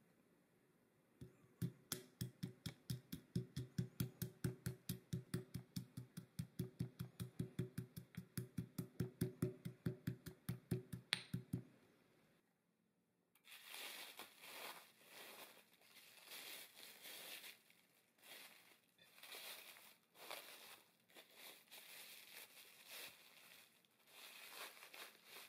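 Pestle pounding pistachios in a marble mortar, an even run of sharp knocks at about four strikes a second for some ten seconds. Then, about halfway through, plastic cling wrap crinkles in irregular bursts as it is folded over the mixture in a loaf pan.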